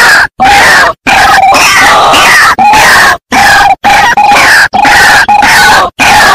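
White-breasted waterhen (ruak-ruak) lure call recording: a loud, continuous run of repeated raucous calls, broken by about six brief silent gaps where the recording is spliced.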